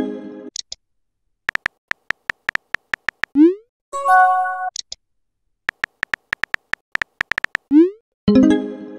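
Texting-app sound effects: runs of short electronic key-tap clicks as a message is typed, each followed by a quick rising swoosh and a short electronic chime as the message is sent and pops into the chat. The cycle comes twice, about four seconds apart.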